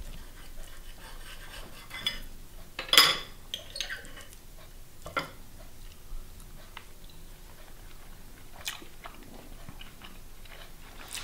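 Knife and fork cutting a zucchini pancake on a plate: a few sharp clinks and scrapes of metal on the plate, the loudest about three seconds in. Then a man chewing a mouthful.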